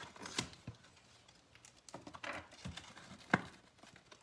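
A cardboard trading-card box being torn and pried open by hand: scattered rustling, tearing and clicks, with one sharp snap about three seconds in.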